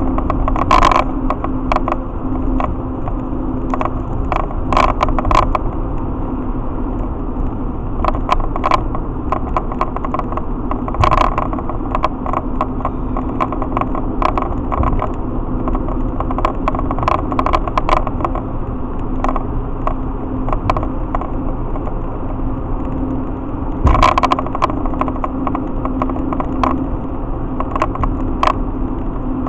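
Steady engine drone and road noise inside a vehicle's cab while driving on a highway, with frequent short clicks and knocks over it and a louder knock about 24 seconds in.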